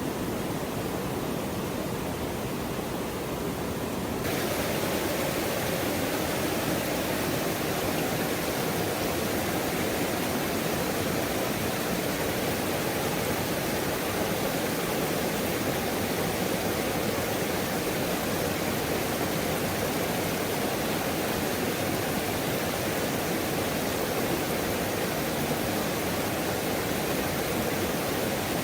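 Waterfall rushing steadily, a constant roar of falling water; it gets a little louder and brighter about four seconds in, then holds.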